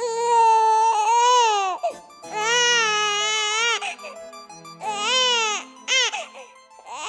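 An infant crying: two long wailing cries of about a second and a half each, then two short cries near the end.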